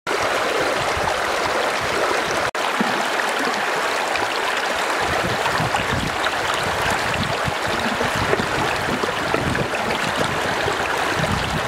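Shallow stream rushing over rocks, a steady, continuous sound of running water.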